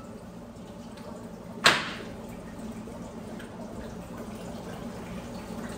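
A single sharp knock about two seconds in, over a steady low hum.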